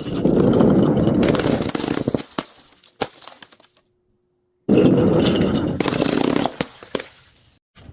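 Glass being crushed, crunching and shattering in two loud bursts of about two seconds each, with a brief dead-silent gap between them.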